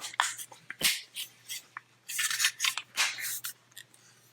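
Plastic parts of a Transformers action figure clicking and scraping as they are pushed and forced into place during transformation: a string of short clicks, the sharpest a little under a second in.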